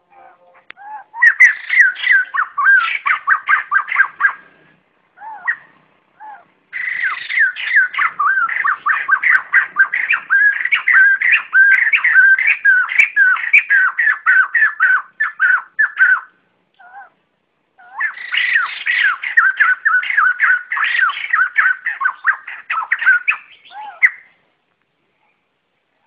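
White-crested laughingthrush giving its flock call: three long bouts of fast, repeated squawking notes, about five a second, with single calls in the short gaps between bouts; it falls silent about two seconds before the end.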